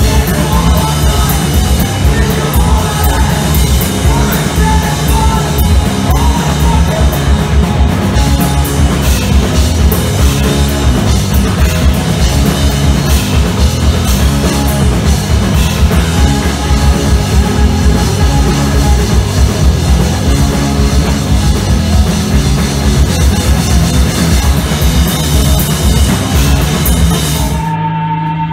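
A three-piece punk rock band playing live: electric guitar, bass guitar and drum kit at full volume with a fast, steady beat. Near the end the drums and cymbals stop briefly while a low note rings on.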